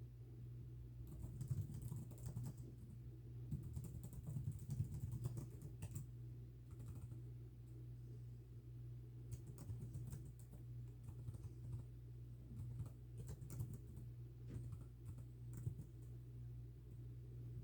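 Typing on a keyboard: runs of quick key clicks with a short lull partway through, over a steady low hum.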